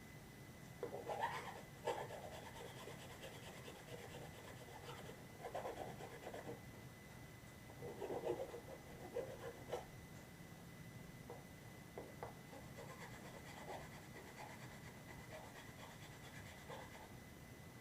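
Faint, intermittent scratching and rubbing from hand work on a 3D-printed plastic prop part, in a few short strokes.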